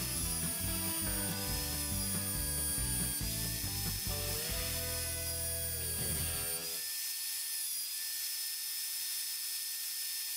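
Electric belt sander running, grinding the bevel on a small steel knife blade pressed against its sanding belt: a steady grinding hiss over the motor.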